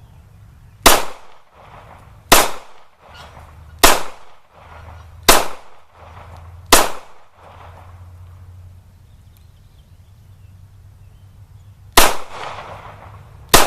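Ruger LC9 9 mm compact pistol firing hand-loaded rounds: five shots about a second and a half apart, a pause of about five seconds, then two more near the end. With the last shot the magazine runs dry and the slide locks back.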